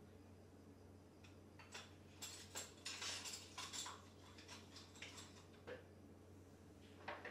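Faint clicks and light taps of small household objects being handled, starting about a second in and thinning out after about five seconds, over a steady low hum.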